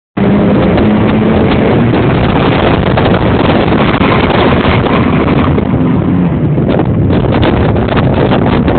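Heavy wind buffeting the microphone, loud and steady, with car engines running faintly underneath.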